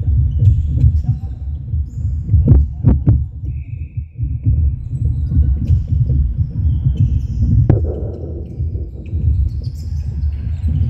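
Sports-hall game noise during a netball match: a constant low thudding rumble with a heartbeat-like throb, sharp knocks about two and a half and three seconds in and again near eight seconds, a short high tone about three and a half seconds in, and faint distant voices.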